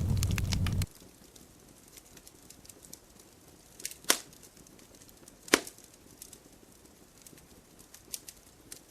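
Wood campfire crackling densely with a low rumble for about a second, then cutting off suddenly to a quieter fire with scattered small crackles and two sharp pops about a second and a half apart.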